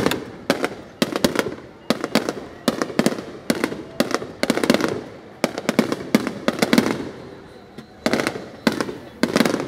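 Fireworks going off in a continuous volley: sharp bangs and crackling clusters, one to two a second, each with a short rumbling echo.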